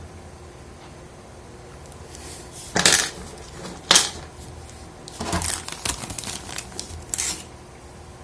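Small plastic figure parts being handled and fitted together: several sharp clicks and taps, the loudest about three and four seconds in, with a quick cluster a little after five seconds.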